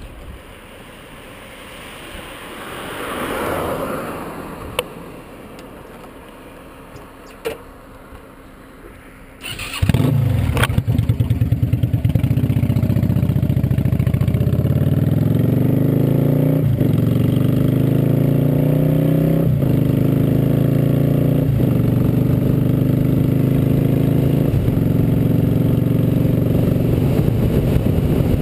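Cruiser motorcycle engine starting about ten seconds in and running loud, then rising in pitch as the bike accelerates away, with a brief dip at each of several gear changes. Before it starts there is only low background noise and a couple of sharp clicks.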